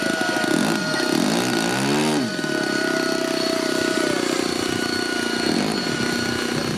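Radio-controlled model helicopter's motor and rotor running with a steady whine. Twice there is a sweeping swish as it flies past, the first about a second in and the second near the end.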